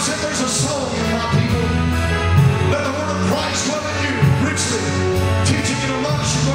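Live gospel praise music: a drum kit with cymbal strokes over steady bass notes, with singing over the band.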